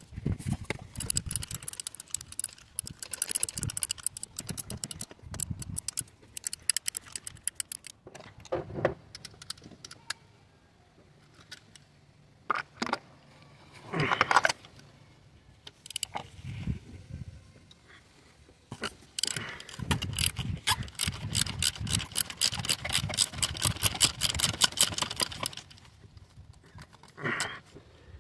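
Ratchet wrench clicking in quick runs on a socket and extension while working a spark plug loose. One long run comes at the start, then scattered clicks, then another long, fast run about two-thirds of the way through.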